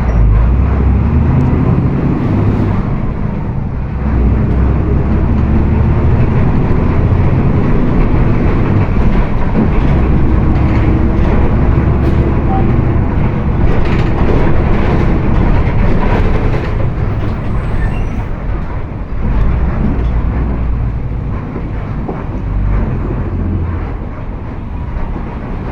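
Volkswagen 17.230 EOD bus under way, its drivetrain giving a steady low rumble with a faint whine from the differential ("diferencial roncando").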